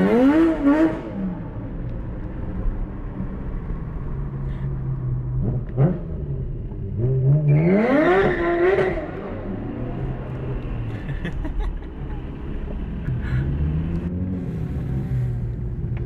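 Drift car's engine revving in sharp blips over a steady engine hum, heard from inside a following car: one rev near the start, a quick blip, then the longest and loudest rev around the middle, rising and falling over about two seconds, and a softer one later.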